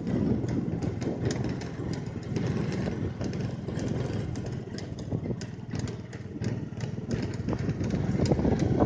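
A tractor's engine running steadily, growing louder near the end, with a scatter of sharp clicks over it.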